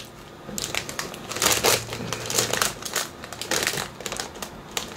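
Plastic-foil potato chip bag crinkling as it is handled and turned over, in a string of irregular crackles.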